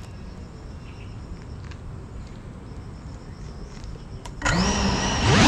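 Low, steady background noise, then about four seconds in the motors of a GEPRC Cinelog 35 cinewhoop drone spin up with a loud whine that wavers in pitch as throttle is applied for takeoff.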